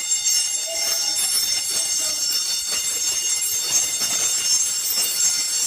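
Old-fashioned electric fire alarm bell ringing steadily without a break.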